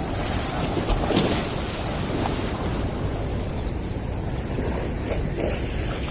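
Steady rushing noise with wind buffeting the microphone, a stronger gust about a second in.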